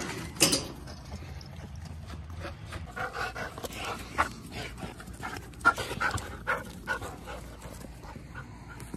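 Dogs panting and moving about excitedly close by, with several sharp clicks and knocks; the loudest comes a little over halfway through.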